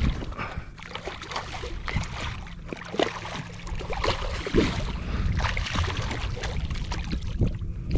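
Hooked fish thrashing at the surface of shallow water beside a kayak, making irregular, choppy splashes, with a low wind rumble on the microphone.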